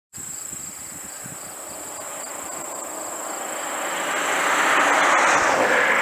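Case IH 8230 combine and the tractor pulling the grain cart running while harvesting soybeans and unloading on the go, heard as a steady machinery noise that swells louder about four to five seconds in. A thin steady high whine sits over it.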